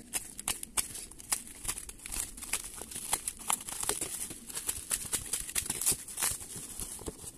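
Yellow plastic postal mailer slit with a box cutter and torn open by hand: irregular crinkling and crackling of the plastic wrap and tape.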